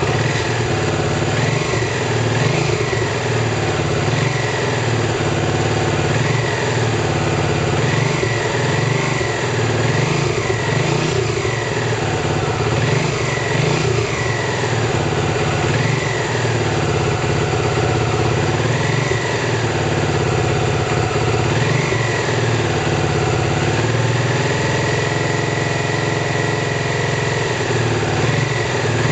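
Lexmoto Ranger 125's single-cylinder four-stroke engine running steadily at idle, its pitch wavering up and down a little now and then. The charging system is holding the battery at about 14 volts while it runs.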